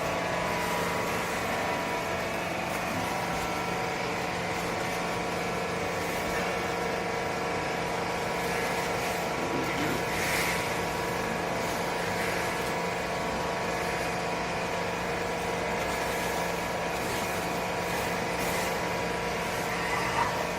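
Vertical baling machine's motor and pump running with a steady hum, holding one low tone and several higher ones without change.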